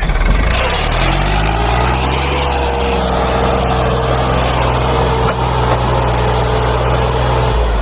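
Swaraj 744 XT tractor's three-cylinder diesel engine running hard under load, pulling a heavily loaded trolley. The engine note rises about a second in and then holds steady.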